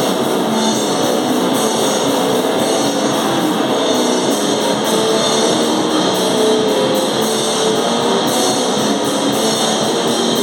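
Hardcore noise metal band playing live: heavily distorted guitars and drum kit in a loud, dense, unbroken wall of sound.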